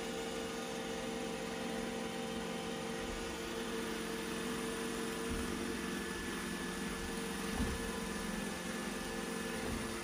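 iRobot Roomba J7+ robot vacuum running: a steady motor and fan hum with a few steady tones over it, and one brief low thump about three quarters of the way through.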